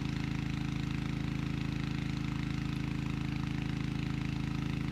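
A machine running steadily: a low, even drone with a fast pulse, like a small engine or motor at idle.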